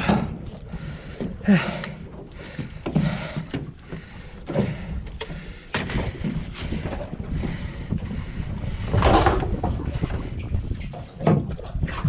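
Wind and water noise aboard a small open fishing boat, with scattered knocks of gear against the hull and a louder rush of water or wind about nine seconds in.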